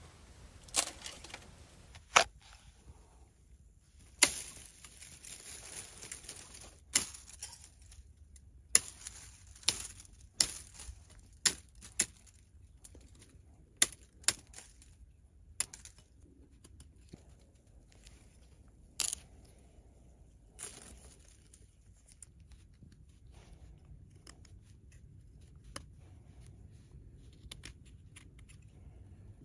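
Irregular sharp cracks and knocks, about a dozen and spaced unevenly, with short bursts of rustling and crinkling between them.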